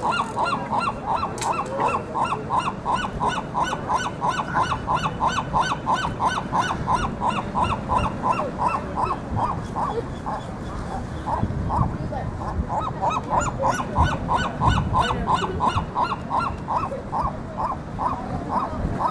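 Seagulls squawking in a rapid, unbroken series of short, honking calls, about three or four a second, as they clamour to steal food.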